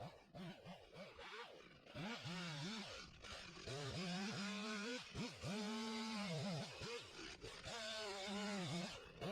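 Two-stroke chainsaw revved up and back down several times, held at high revs for one to two seconds at a time, as in short cuts bucking up a fallen tree.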